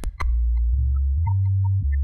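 Low, melodic bass line: sustained deep notes that change pitch about every half second, with a few faint high blips above them. It is the sinusoidal layer that a sines-plus-residual separation pulled out of an electronic sample. One last sharp click from the clicky residual layer comes right at the start.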